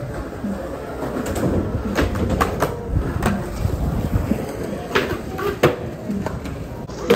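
Skateboard rolling on concrete, its wheels rumbling steadily, broken by sharp clacks and knocks of the board and trucks striking the ground, several times.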